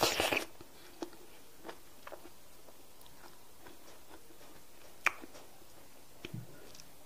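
Eating a handful of semolina fufu with slimy okra soup: a loud mouth sound as the mouthful goes in, then faint chewing with scattered small mouth clicks, and one sharp click about five seconds in.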